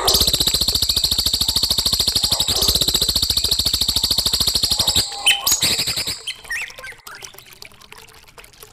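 Songbird song: a long, very fast ticking trill held high in pitch for about five seconds, then a few softer scattered chirps.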